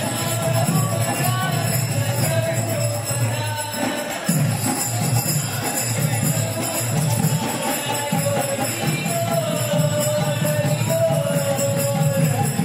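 Kirtan music: small hand cymbals jingling in a steady beat under a held, wandering melody line.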